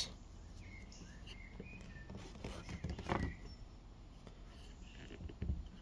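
Quiet background with faint handling noise and a soft knock about three seconds in, as a spark plug socket is fetched.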